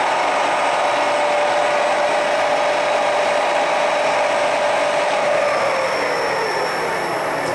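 WMW ZFWZ 250/4 CNC gear hobbing machine running under power: a loud, steady mechanical whir with a hum that slides lower in pitch about six seconds in.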